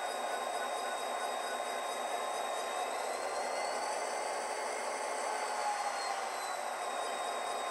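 Model train running on the layout: a steady whir of motors and wheels on the rails, with a faint whine that rises and then falls in pitch around the middle.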